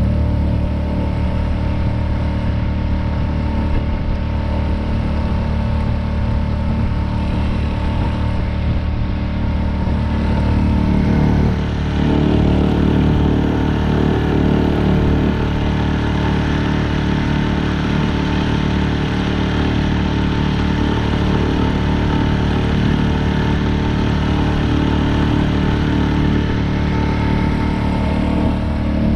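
Outboard motor on a small fishing boat running steadily, picking up speed and getting louder about twelve seconds in.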